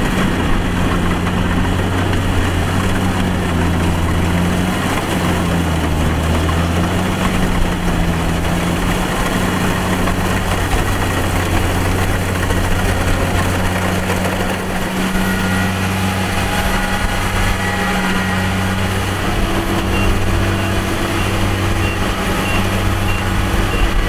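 Kubota DC-70 rice combine harvester's diesel engine and threshing machinery running steadily while cutting rice, a loud constant mechanical hum with a low drone.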